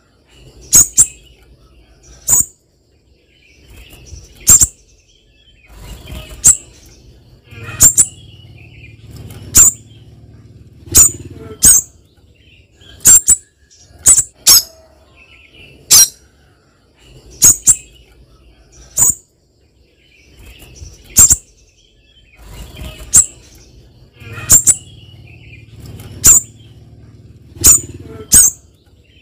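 Spiderhunter giving short, sharp, very high calls, one every second or two, some in quick pairs.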